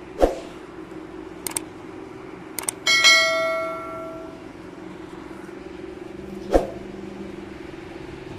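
Subscribe-button sound effect: a few sharp clicks, then a bell ding about three seconds in that rings out and fades over a second or so, with another click near the end, over a steady low hum.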